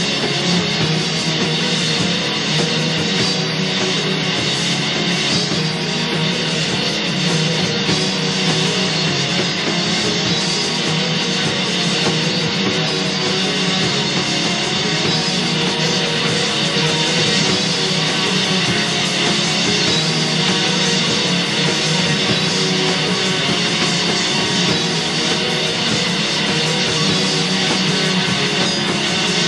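Black metal music from a 1995 Finnish demo: distorted electric guitar in a dense, unbroken wall of sound at a steady loudness.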